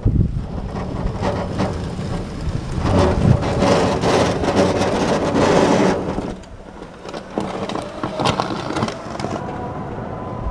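Small home-built electric tractor pushing snow, its plough blade scraping and crunching through the snow, loudest in the middle, with wind buffeting the microphone.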